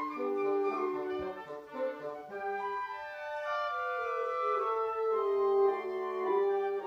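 A live wind quintet playing classical music, several woodwind lines (flute, clarinet, bassoon) and horn moving together in sustained notes. The lowest part drops out about two seconds in and comes back about five seconds in.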